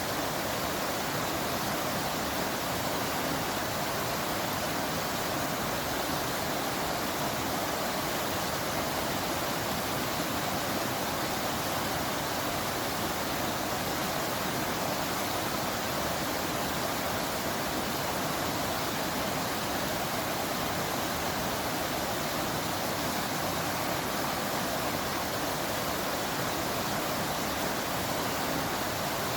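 Waterfall: the steady rush of falling water, an even hiss with no breaks or changes.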